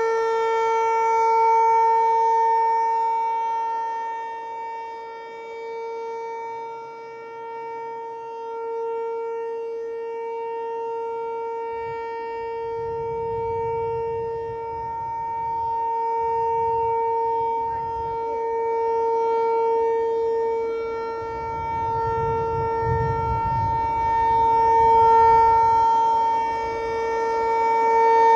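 Outdoor tornado warning siren sounding a steady tone during its test. The tone holds one pitch while its loudness swells and fades every several seconds.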